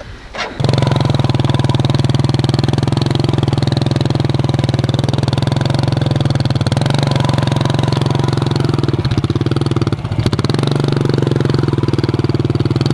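Small motorcycle engine starting up about half a second in and running steadily after stalling on a steep dirt climb, with a couple of brief dips in level near the ninth and tenth seconds.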